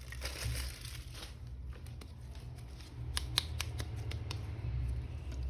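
Handling of a plastic-packaged toy action figure being unboxed: soft rustling, then a run of small sharp clicks and snips from about three seconds in, over a steady low hum.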